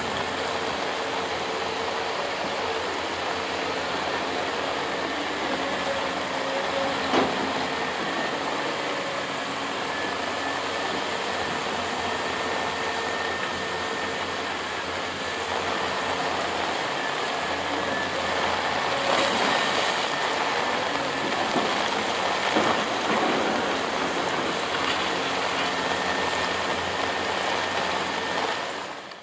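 Steady noise of vehicle engines and traffic on a road, with faint held engine tones, slightly louder in the second half.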